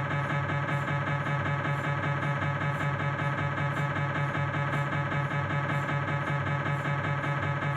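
Philips 1.5-tesla MRI scanner's gradient coils buzzing in a fast, steady, evenly repeating rhythm with a fixed hum of tones, during a proton-density fat-saturated transverse knee sequence.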